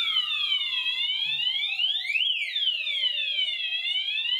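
Red wall-mounted fire alarm sounder sounding a siren tone that sweeps up and down, with overlapping sweeps peaking about every three seconds. It signals a fire alarm set off by the linear heat cable's test section being heated by the tester.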